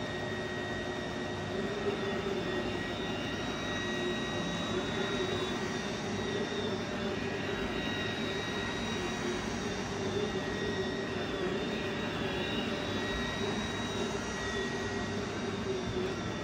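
Robot vacuum cleaner running: a steady motor hum with a high-pitched whine.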